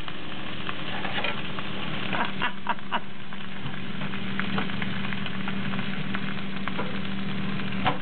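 Microwave oven running with a steady hum while the burnt-out remains of a box fan motor inside crackle and spark, with several sharp pops about two to three seconds in and another near the end.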